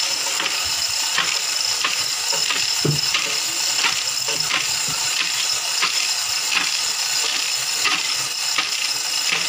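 Manual chain hoist lifting a stack of line-array speaker boxes: the hand chain rattles through the hoist with an irregular run of ratchet clicks, over a steady hiss.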